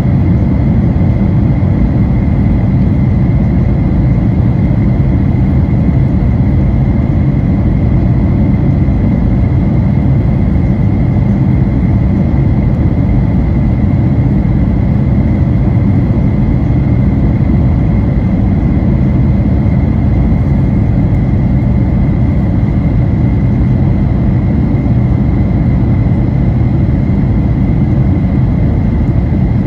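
Cabin noise inside a Boeing 737-900ER airliner: a steady, loud rumble of the engines and airflow, with a thin steady high tone above it that never changes.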